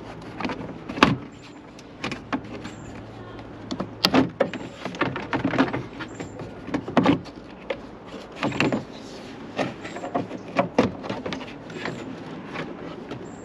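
Plastic trim fasteners being twisted off a plastic cover: a string of irregular plastic clicks, knocks and scrapes, with the sharpest ones about a second in, around four seconds and around seven seconds.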